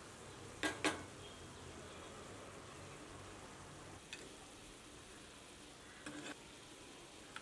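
Achari mutton sizzling in a pan while a metal spoon stirs it, knocking against the pan: two sharp knocks close together about a second in, then a few softer ones later.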